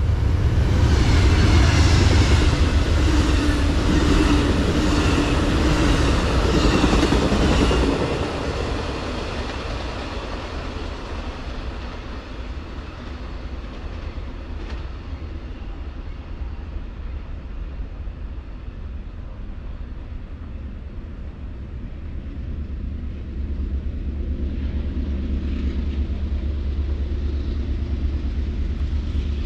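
Metra diesel commuter train passing close by: a low rumble with the wheels clicking over the rails in a steady rhythm of about one click a second. After about eight seconds the sound drops off sharply to a softer low rumble, which grows louder again near the end.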